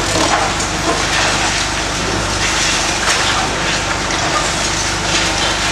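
Long-reach demolition excavator running steadily while its jaws crush and break the concrete and masonry of the building, with frequent irregular cracks and crunches over the engine drone.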